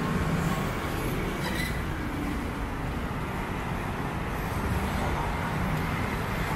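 Steady city traffic noise: a low, continuous rumble of passing vehicles.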